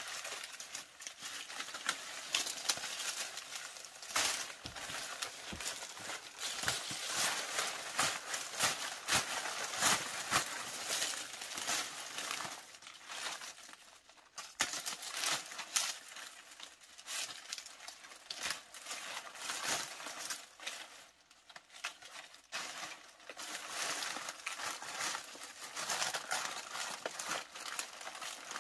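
Dry palm leaves rustling and crackling as they are dragged out of a heap and gathered by hand into a bundle, with many sharp crisp clicks of stiff leaf stems. The sound eases off briefly about halfway through and again around two-thirds through.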